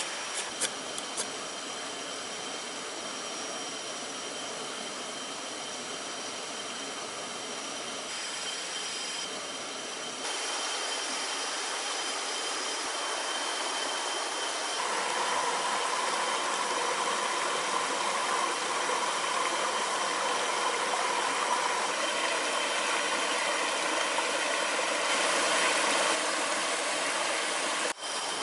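Steady rushing of a forest stream, getting louder about ten seconds in, with a thin steady high tone running over it. A few sharp scrapes of a ferro rod struck over dry fibre tinder come in the first second.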